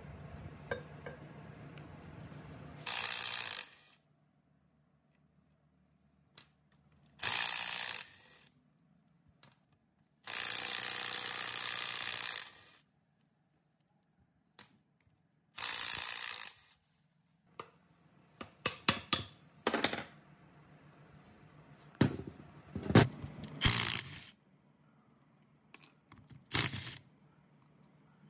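Cordless impact wrench run in five short bursts, one longer than the rest, loosening the cylinder head bolts of an old V-twin air compressor. A run of metal clinks and knocks comes in the second half as bolts and head parts are handled.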